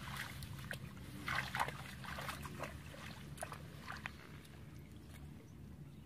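Bare feet wading through shallow muddy water, a run of sloshing splashy steps that stop about four seconds in.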